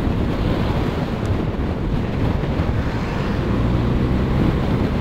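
Steady wind rush buffeting the microphone and road noise from a motorcycle travelling at speed, with a low engine drone underneath.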